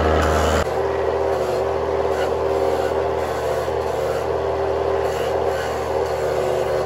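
Motor-driven cassava grater running with a steady hum while grating peeled cassava roots fed in by hand.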